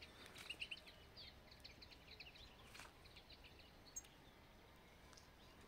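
Faint twittering of small songbirds: a run of short, high chirps through the first three seconds and a few more after, over a quiet background. A single sharp click about four seconds in.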